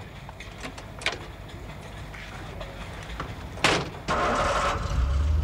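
A car door is slammed shut, then the starter cranks briefly and the engine catches and settles into a low, steady idle near the end.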